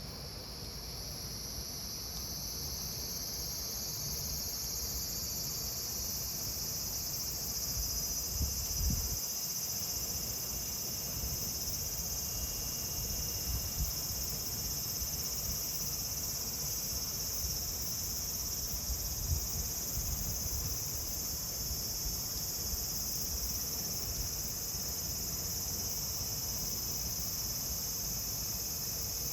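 Cicadas singing in a dense, steady high-pitched chorus that swells in over the first few seconds. Underneath is a low rumble, with a couple of soft thumps about nine seconds in and again near nineteen seconds.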